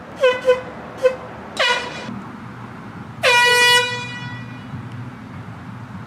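Handheld air horn blaring: a quick run of short blasts in the first two seconds, then one longer blast a little past three seconds in.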